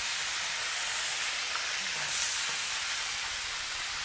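Chunks of meat frying in hot oil in a wok: a steady sizzle, briefly louder a little after two seconds.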